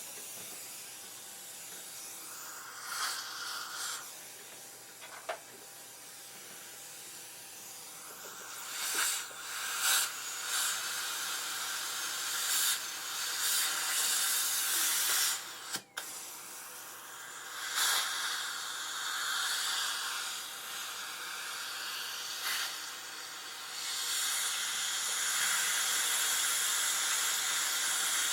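Dentist's drill running in spurts with a hissing, spraying sound that swells and fades. It cuts out for an instant about two-thirds through, then runs steadier and louder near the end.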